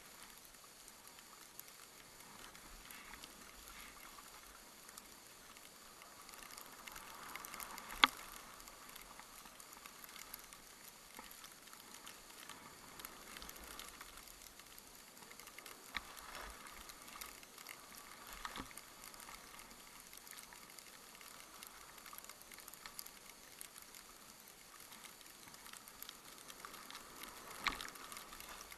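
Skis hissing and scraping faintly on snow during a downhill run, picked up by a moving action camera, with a few sharp clicks or knocks; the loudest is about eight seconds in, and another comes near the end.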